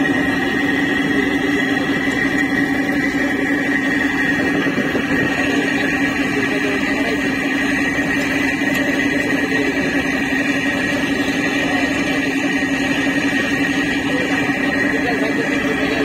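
River launch's engine running steadily, a constant drone with a low hum and a high steady whine over the rush of water and wind.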